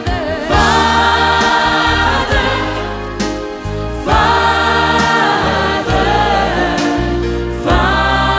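Gospel worship song: a choir sings sustained phrases over bass notes and drums.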